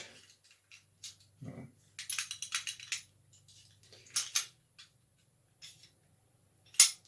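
Metal keys clinking and clicking against a brass lever padlock as they are handled. There is a cluster of light clinks about two to three seconds in and a sharp click near the end.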